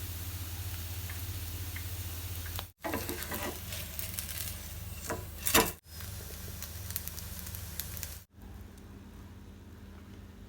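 Sliced-potato pancake frying in an oiled pan, a steady sizzle, heard in short clips that cut off abruptly three times. Between about three and six seconds come sharper clicks, with one louder knock just before the second cut.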